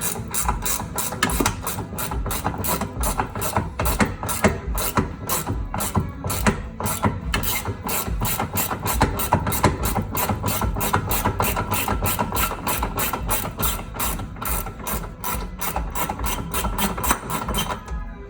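Ratcheting wrench clicking steadily, several clicks a second, as a control arm bolt is worked loose and backed out.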